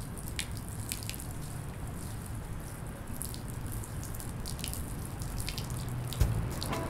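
Liquid pouring from a plastic jerry can, splashing and dripping with scattered spatters over a steady low background. There is a single knock about six seconds in.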